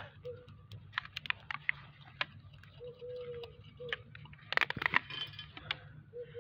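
Sharp clicks and scrapes of a small metal hand trowel digging into stony garden soil, loudest about halfway through. A dove coos in the background, a long note then a short one, repeating about every three seconds.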